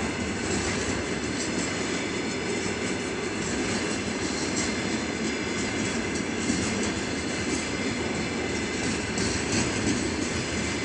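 Container flatcars of a freight train rolling past at speed: a steady rumble of steel wheels on the rails with scattered light clicks.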